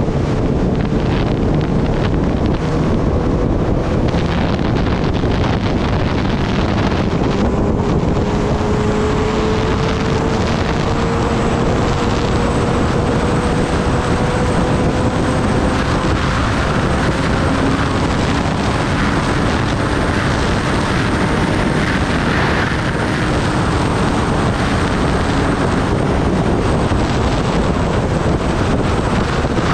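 Kawasaki Ninja ZX-10R inline-four engine running under way, buried in heavy wind rush on the microphone. The engine note climbs slowly over the first half as speed builds.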